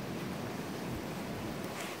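Gusty wind blowing in a steady rushing roar, heaviest in the low rumble, with wind buffeting the microphone.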